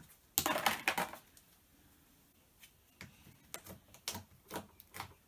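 Soft slime being handled: a brief burst of noise about half a second in as it is pulled free, then a string of sharp clicks, roughly two a second, as it is squeezed and kneaded. The clicks are the popping of small air pockets in the slime.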